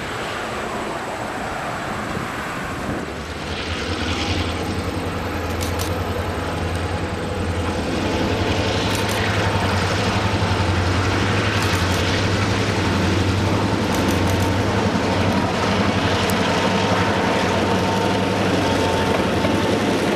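Freight cars rolling by at first. After a few seconds, a pair of EMD FP9u diesel locomotives approach under power, their engines' steady low drone growing louder as they come close and pass.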